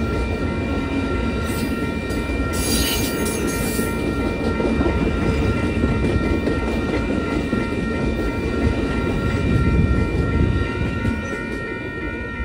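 Amtrak Superliner bi-level passenger cars rolling past over a grade crossing, their wheels rumbling and clattering on the rails, while the crossing's warning bell rings steadily. The train noise fades near the end as the last car clears the crossing, and the bell keeps ringing.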